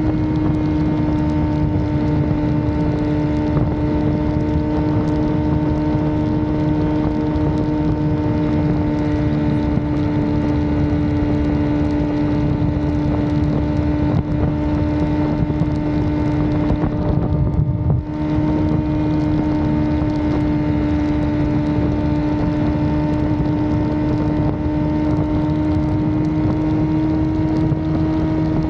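Suzuki GSX-R sportbike's engine running at a steady cruising speed, holding one even note, with wind rushing over the microphone. The note breaks briefly about two-thirds of the way through, then carries on unchanged.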